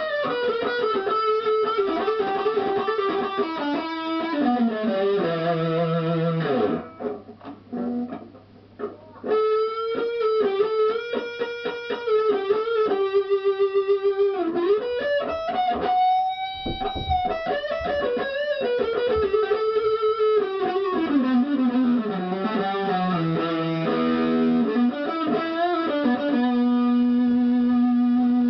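HK Wolf superstrat electric guitar played solo: single-note lead lines moving up and down, with slides and long sustained notes. The playing thins out briefly about seven seconds in, and a held note rings near the end.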